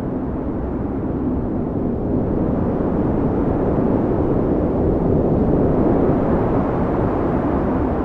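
Strong windstorm wind blowing steadily, a low rushing sound that swells slightly in the middle.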